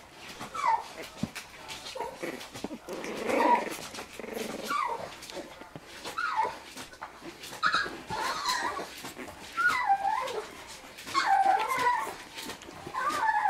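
Four-week-old puppies playing together with a string of short, high-pitched yips and whimpers every second or two, each call sliding up or down in pitch. There is a rougher, noisier stretch about three to four seconds in.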